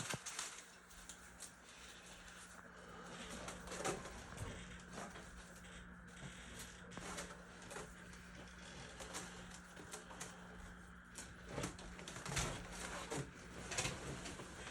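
Scattered light clicks and taps, as of small objects being handled, over a faint steady hum.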